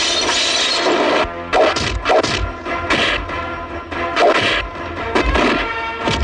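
Film fight sound effects: a string of about six sharp punch and kick whacks, each with a low thud, over a background music score. A dense crashing noise fills the first second.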